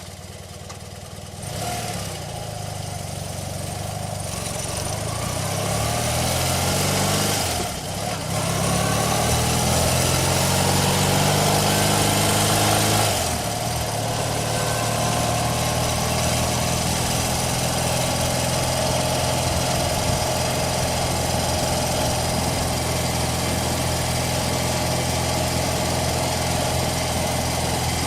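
Motorcycle engine running just after start-up. Its revs climb slowly, dip briefly about 8 seconds in, climb again, then drop suddenly about 13 seconds in to a steady idle.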